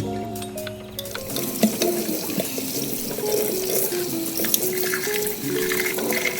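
Water running steadily, starting about a second in, with a few light clicks, over soft background music.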